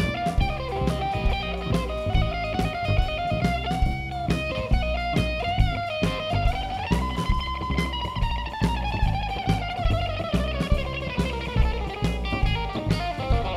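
Rockabilly band playing live: a hollow-body electric guitar takes the lead over upright bass and drums. About halfway through, the guitar holds one long high note that slowly falls in pitch.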